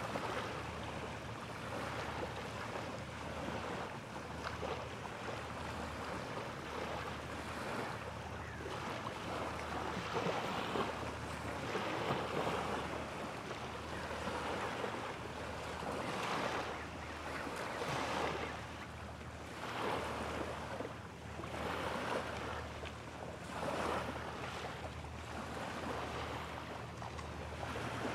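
Small waves washing against the shore in slow swells every couple of seconds, with wind on the microphone, over a low hum that pulses about once a second.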